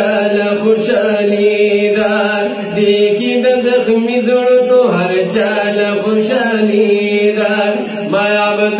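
Men's voices chanting a Pashto naat, a devotional hymn in praise of the Prophet, in long held and gliding notes through a handheld microphone.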